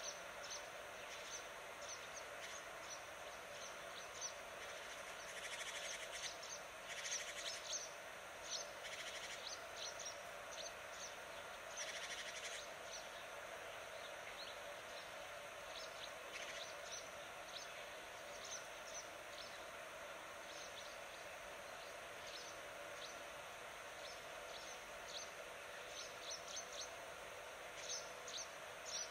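Small birds chirping: many short, high chirps, some in quick clusters, over a steady background of outdoor noise.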